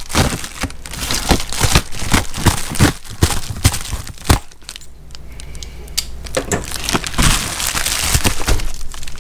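Plastic mailer bag being cut open with a pocket knife and handled, crinkling and crackling with many sharp crackles; it eases off for a moment a little after the middle, then rustles again.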